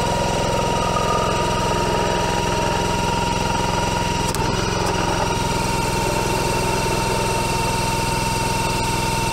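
Small gasoline engine of a 22-ton log splitter running steadily, with a thin steady whine above the engine note.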